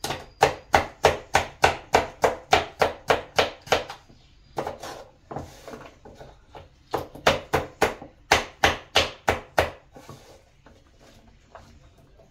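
Crinkle-cut knife chopping carrots on a wooden cutting board: a fast run of sharp chops about four a second, a pause, then a second run of chops that stops about two seconds before the end.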